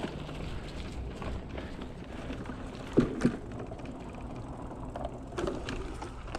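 Mountain bike rolling on a dirt trail: the freehub ratchet clicks and the tyres run on the dirt, with two sharp knocks about three seconds in and another a little after five seconds.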